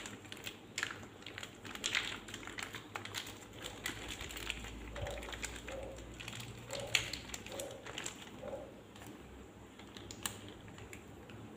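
Crinkling of a plastic condiment sachet being handled and squeezed, with many light clicks and taps of a small plastic cup and a spoon against a bowl.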